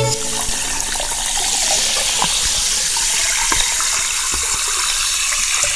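Liquid poured into a glass over ice and a lime slice: a steady pouring rush scattered with small crackling ticks.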